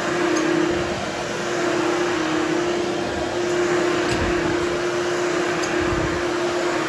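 Hoover Hushtone vacuum cleaner running steadily while grooming a berber carpet, a constant motor drone with a steady hum, with a couple of low bumps about four and six seconds in.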